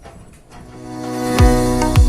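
Background music fading in: a swelling electronic build that breaks into a beat with deep bass kicks about one and a half seconds in.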